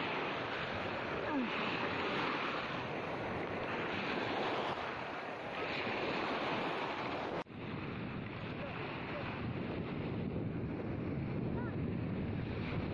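Small waves washing and breaking onto a beach shoreline, with wind buffeting the microphone. About halfway through the sound briefly cuts out and resumes duller.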